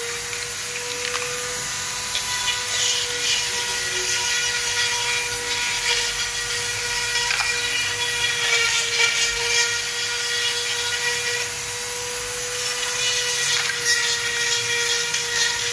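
Small electric power tool running at a steady pitch, grinding away the soft wood of a piece of agarwood to leave only the resin, with faint scraping as the bit meets the wood.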